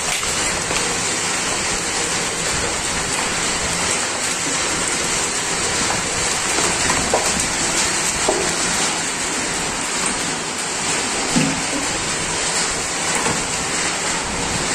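Heavy rain mixed with hailstones pelting wet tiles, a dense, steady hiss with the odd faint tick.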